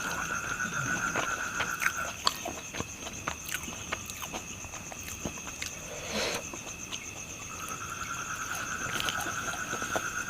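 Insects trill in a steady outdoor chorus at several high pitches, one voice falling silent about two seconds in and starting again near the end. Over it come short crisp clicks of chewing on crunchy fried pork intestine.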